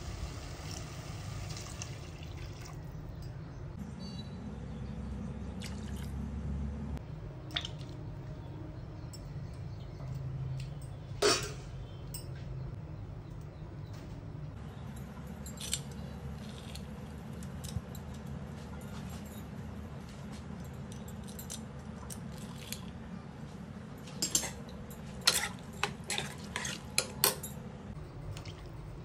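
Water poured from a steel tumbler into a pressure cooker full of rice and vegetables, splashing for about two seconds. Then scattered sharp taps of utensils on the cooker, one loud knock about eleven seconds in, and a quick run of clinks near the end as a slotted ladle stirs in the pot, over a steady low hum.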